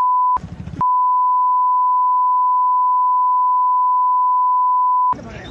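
Steady 1 kHz censor bleep tone laid over the audio, masking what is said. It is broken twice by brief gaps, about half a second in and again near the end, where faint noise from the original recording comes through.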